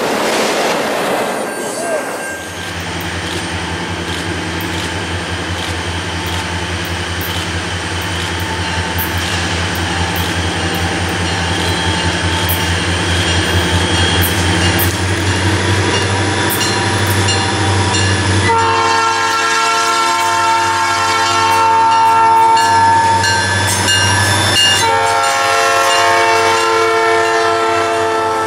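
The last cars of a freight train rumble past. Then an approaching freight train's diesel locomotives drone ever louder. About two-thirds of the way in, the lead locomotive's multi-note air horn sounds a long blast, pauses briefly, and sounds again near the end as the locomotives pass.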